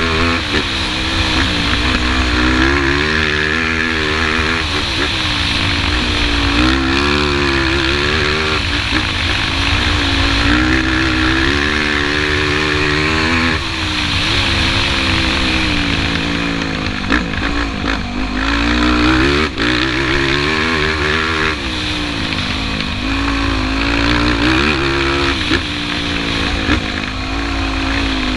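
Sport quad's (ATV's) single engine on a dirt track, its pitch repeatedly climbing under throttle and falling off between gear changes. There is a sudden drop about halfway through, followed by a few short knocks.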